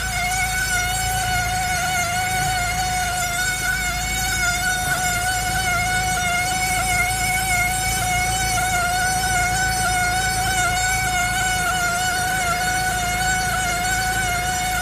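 Steady high-pitched squeal from the right front corner of a 2002 Saab 9-5 Aero, one held tone with a slight waver, over a low rumble.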